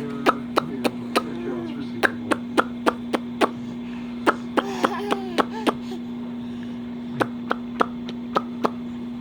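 Sharp taps or knocks, struck in runs of four to six at about three a second with short pauses between the runs, over a steady low hum.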